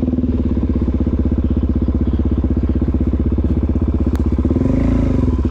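Suzuki DR-Z400SM single-cylinder four-stroke engine running steadily under the rider, its firing pulses coming fast and even. There is one sharp click about four seconds in.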